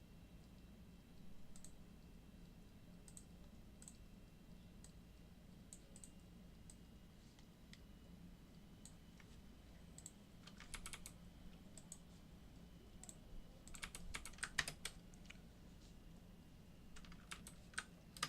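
Faint computer keyboard typing: scattered single keystrokes, then short runs of quick keystrokes about ten, fourteen and seventeen seconds in. A low steady electrical hum lies underneath.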